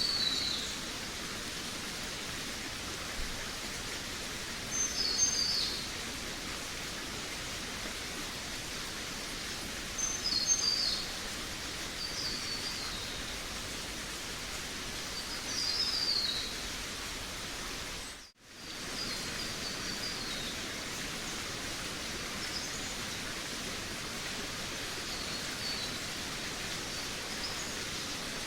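Forest birds singing short, quick chirping phrases every few seconds over a steady background hiss. The sound cuts out for a moment about two-thirds of the way through, then resumes.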